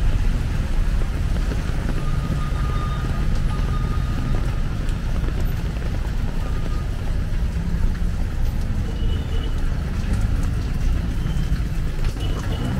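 Rainy city street ambience: traffic running on a wet road, a steady deep rumble under a faint even hiss.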